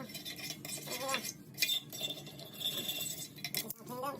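Hard objects clinking and clattering in a run of short, irregular knocks as tools and cleaning supplies are handled and set down.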